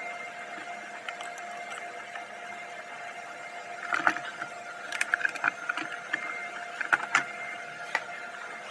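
Plastic door-handle and trim parts being handled and fitted together, with a scatter of light clicks and knocks starting about halfway through, over a steady hum.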